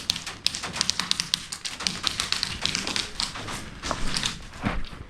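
Airsoft guns firing: a rapid, irregular run of sharp clicks and taps, several a second.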